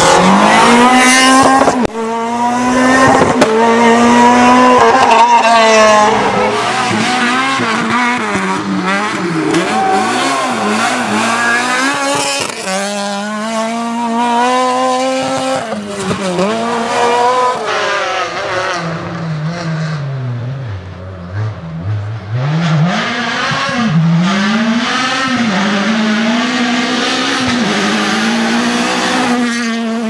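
Renault Clio R3 rally cars' naturally aspirated 2.0-litre four-cylinder engines revving hard through repeated gear changes, the pitch climbing and dropping again and again. The revs drop low about twenty seconds in, then climb again.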